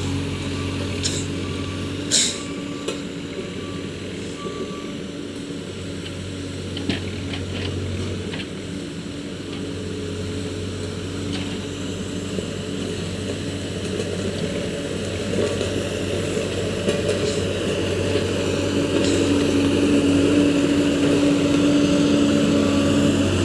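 Road roller engine running steadily, getting louder in the last few seconds, with a reversing alarm beeping in early on and again near the end. A single sharp click about two seconds in.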